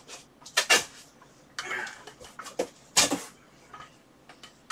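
A large cardboard box having its packing tape cut and being handled: a few sharp clicks and knocks and a short scraping rustle, the loudest knock about three seconds in.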